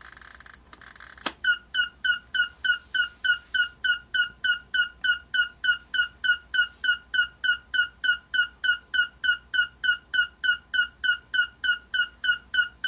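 Panasonic RC-6551 flip clock radio's alarm sounding: after a second of hiss it cuts in with rapid electronic beeps, about three a second, each with a slight downward chirp, a siren-like sound.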